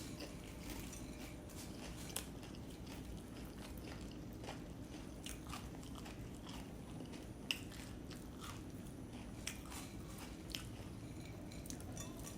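Chewing and crunching a mouthful of puffed rice (muri) with jackfruit: irregular crisp crunches, with a steady low hum underneath.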